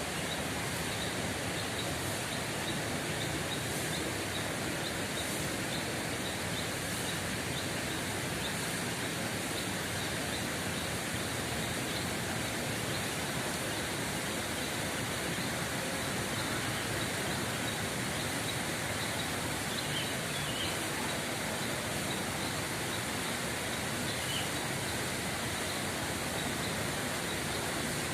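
Steady rush of flowing water, with faint, short high chirps repeating over it.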